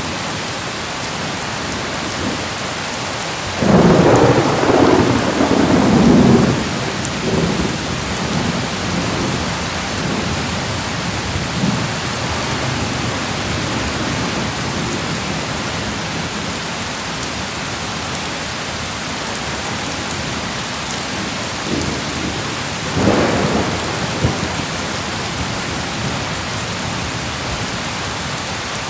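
Steady heavy rain, with thunder rumbling twice: a long loud roll about four seconds in that tails off over several seconds, and a shorter one near the end.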